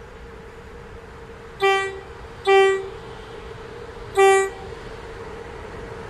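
Electric locomotive's air horn sounding three short single-tone blasts, two close together and then a third after a pause, as the train approaches. A steady hum from the oncoming train runs underneath and grows louder near the end.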